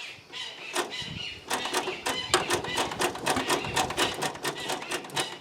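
Farmall Cub four-cylinder flathead engine being turned over by hand crank without catching: a fast, even clatter of about five strokes a second, starting about a second and a half in. It does not fire because its magneto timing is 180 degrees off.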